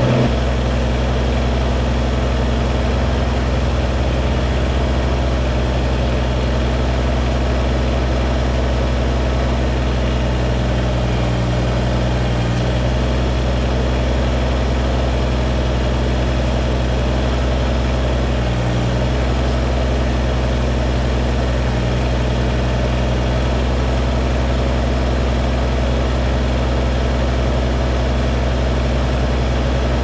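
Kubota BX23S compact tractor's three-cylinder diesel engine running steadily while its backhoe digs, with a few brief dips in its note.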